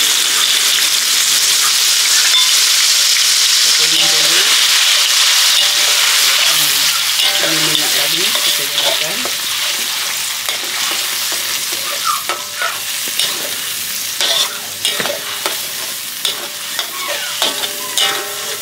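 Chopped onion frying in hot oil in a wok: a loud, steady sizzle that slowly dies down as the onion gives up its water. Through the second half a metal spatula scrapes and clicks against the wok as it is stirred.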